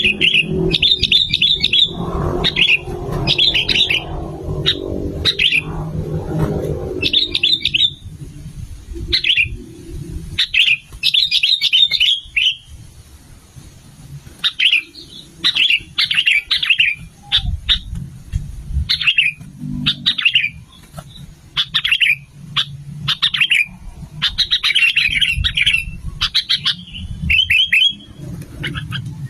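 Sooty-headed bulbul (kutilang) calling over and over: short chirping phrases repeated about every second, with brief pauses between runs. A low rumble lies under the calls for the first several seconds.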